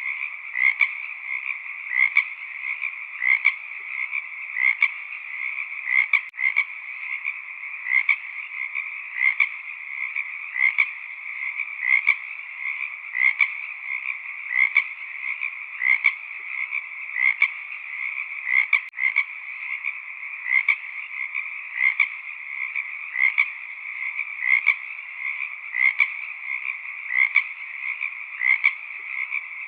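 A chorus of frogs calling steadily, with a louder, closer call repeating at an even pace, roughly every two-thirds of a second.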